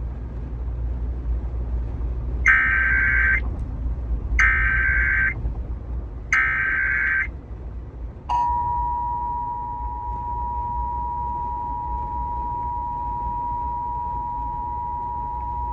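Emergency Alert System header: three short bursts of SAME data tones, each just under a second long and about a second apart. About eight seconds in, the steady two-tone EAS attention signal (853 and 960 Hz together) starts and keeps sounding, marking the start of the alert.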